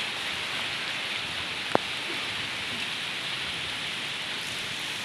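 Steady rain falling, an even hiss, with one sharp tick a little under two seconds in.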